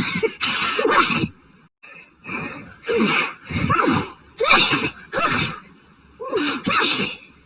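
A person sneezing over and over in quick succession as part of an allergic sneezing fit, put down to a high grass pollen count. A few sneezes come close together, there is a short lull, then about six more follow.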